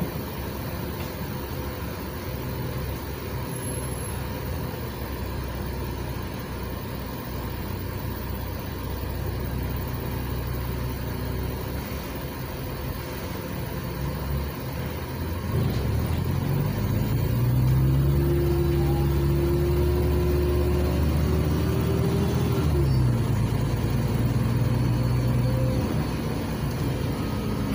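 Cabin sound of a LiAZ 5292.67 city bus with its YaMZ-53624 natural-gas engine idling steadily, then about halfway through the bus pulls away: the engine note and a transmission whine climb in pitch and get louder, then drop abruptly as the ZF automatic gearbox shifts up, and climb again.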